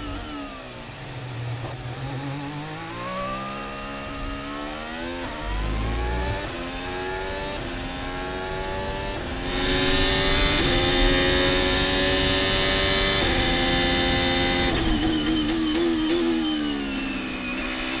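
Ferrari Formula 1 car's 1.6-litre turbocharged hybrid V6, heard from the onboard camera and revving up and down through the gears. Its pitch falls under braking and downshifts, climbs with stepped drops at each upshift, holds high on a straight, then falls again and picks up near the end.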